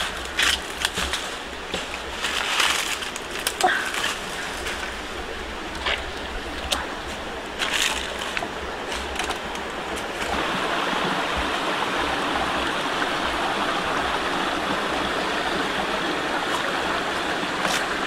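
Scattered crackles and rustles of footsteps on dry leaves and twigs, then about ten seconds in a steady rush of running water from a rocky stream takes over.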